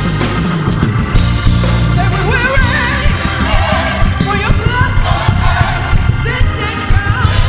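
Live gospel band playing. About two seconds in, a solo voice comes in over it, singing wavering, heavily ornamented runs.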